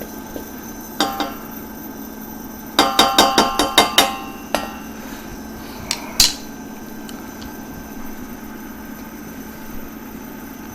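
Metal kitchenware clinking against a pan: a few clicks, then a quick run of about eight ringing metallic taps, then single clicks, after which only a faint steady hum remains.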